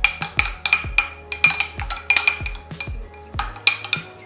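Metal spoon stirring thick glue mixture in a glass container, clinking against the glass several times a second. Background music with a steady deep beat plays under it.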